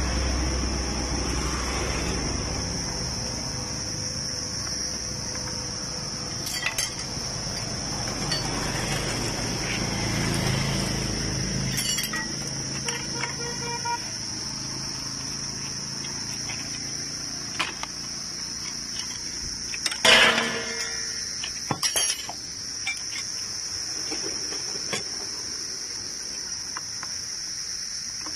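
Metal hand tools clinking against each other and against the motorcycle's clutch parts: a handful of separate sharp clinks, the loudest about two-thirds of the way in. Under them is a steady high insect drone, with a low rumble that fades out about twelve seconds in.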